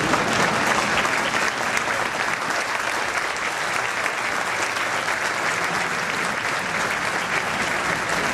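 A large crowd applauding steadily, welcoming the entrance of a dignitary.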